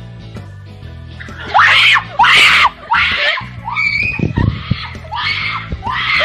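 A girl screaming shrilly again and again, about seven short screams starting about a second and a half in, over background music.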